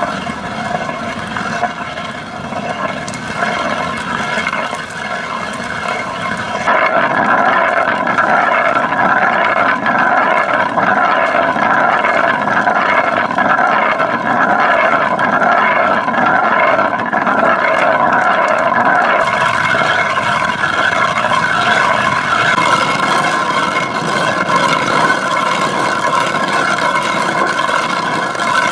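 Hand-turned stone quern grinding dried corn into flour: a continuous rough grinding rumble, louder from about seven seconds in.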